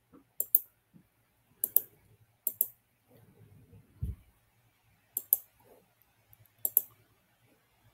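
Computer mouse clicking: five quick double clicks spaced over several seconds, with a soft low thump about four seconds in.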